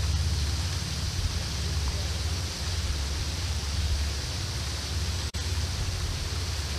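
Wind rumbling on an outdoor microphone over a steady high hiss, broken by a brief dropout about five seconds in.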